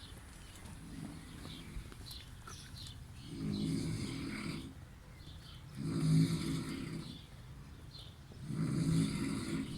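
Snoring: three drawn-out snores about two and a half seconds apart, each lasting a little over a second, with a hissing edge, heard from inside a chapel.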